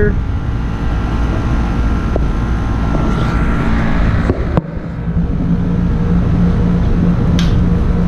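R410A air-conditioner condensing unit running: a steady low hum of the compressor and condenser fan. About halfway there is a sharp click and the sound briefly drops.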